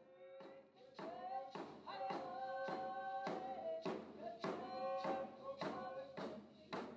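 Music begins: a steady drum beat about twice a second under long held sung notes.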